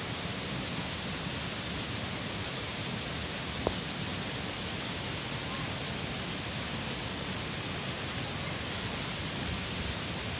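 Steady rushing of flowing water, with a single sharp click about three and a half seconds in.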